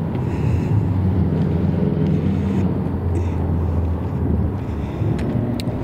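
Low, steady engine rumble with wind buffeting the microphone.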